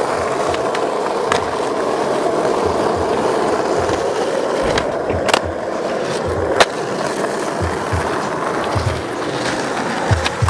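Skateboard wheels rolling steadily over concrete, with a few sharp clacks of the board, the loudest about two-thirds of the way through.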